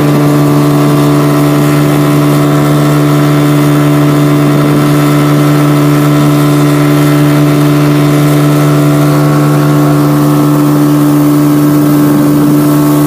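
Motorboat engine running at a steady, unchanging speed, a loud constant drone.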